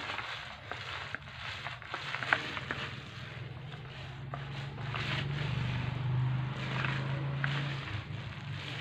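Small paint roller spreading a wet cement-and-waterproofing texture coat over a wooden speaker cabinet: repeated swishing, sticky rolling strokes with a few sharp clicks, over a steady low hum that grows louder in the second half.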